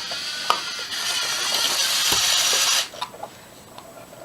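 LEGO Mindstorms NXT servo motors whirring through their plastic gears as the remote-controlled car drives, with a few light clicks. The whirring stops suddenly about three seconds in.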